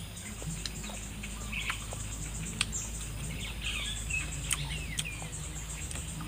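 Birds chirping on and off in short calls, over a steady low hum, with a few sharp clicks.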